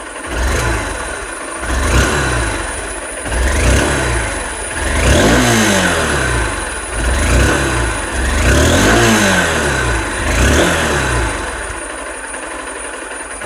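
2023 Honda Unicorn 160's single-cylinder engine revved through its stock exhaust in about six short throttle blips, each rising and falling back, then settling to idle near the end.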